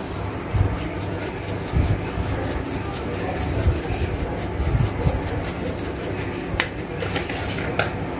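Dried Italian seasoning shaken from a spice shaker over pieces of cow foot in a plastic bowl: a fast run of light shakes that thins out after about five seconds, over a steady low hum.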